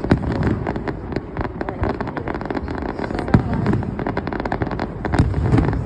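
Fireworks finale: a dense, rapid barrage of shell bursts and crackling with no let-up. A few louder bangs stand out: one just at the start, one a little past the middle, and one near the end.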